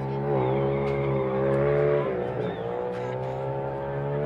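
Motorcycle engine held at high revs, its pitch dipping briefly about half a second in and again around two seconds.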